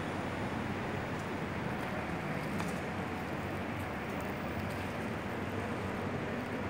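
Steady outdoor background noise: an even low rumble like distant traffic or wind, with one faint tick partway through.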